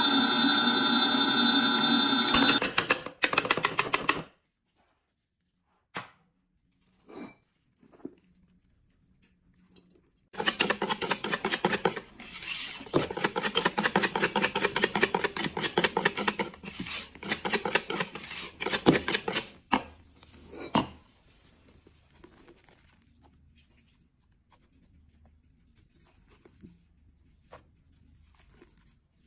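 Stand mixer whisking at high speed with a steady whine, which stops about two and a half seconds in after a brief rattle. Later, about ten seconds of rapid, even clicking and scraping as a wire whisk beats batter in a plastic bowl.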